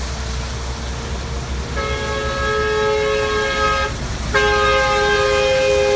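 A vehicle horn sounding two long, steady blasts: the first starts about two seconds in, and after a short break the second, louder one starts a little past four seconds and holds. A low steady rumble lies underneath.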